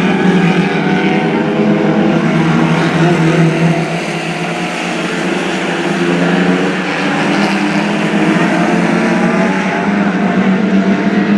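Lightning Rods stock cars racing, their engines running hard at speed, with the sound easing slightly about four seconds in.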